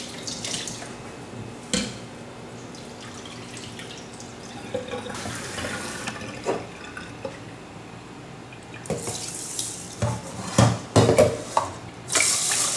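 Kitchen tap running into a stainless steel sink while rice is rinsed in a rice cooker's inner pot, then a cup filled at the tap and its water poured into the pot near the end. A few sharp knocks about ten seconds in.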